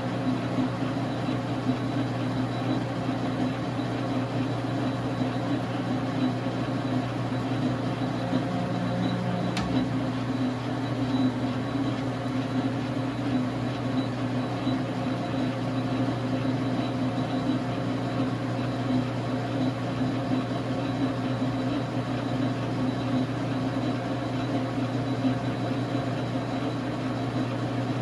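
1989 Dar Sin 12x37 gap-bed metal lathe running steadily, its motor and gearing giving an even hum, with one brief sharp tick about a third of the way through.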